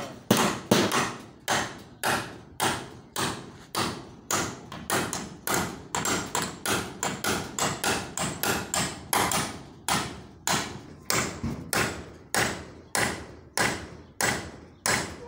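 Hammer driving nails into a wooden pole frame, struck steadily about twice a second, each blow ringing briefly.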